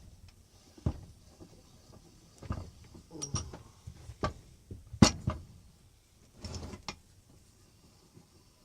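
Monarch bench vise being put back together: the screw and moving jaw are threaded into the fixed jaw, giving irregular metal clicks, knocks and a creak, the loudest knock about five seconds in.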